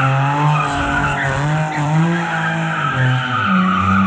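Infiniti G35 coupe with a swapped-in VQ35HR V6, drifting: the engine's revs swing up and down several times while the tyres squeal and scrub across wet concrete.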